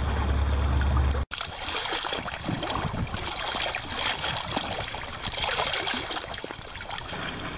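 Wind buffeting the microphone for about a second, then, after a sudden cut, sea swell washing against a rock wall at the waterline, with irregular sloshing and splashing as the water surges up and drains back off the rock.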